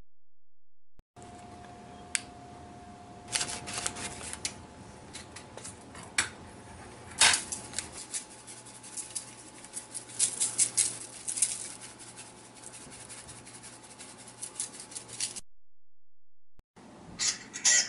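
Dry Italian seasoning packet being opened and shaken out over fish fillets in a foil-lined baking sheet: scattered crisp clicks and rustles with a few sharper snaps.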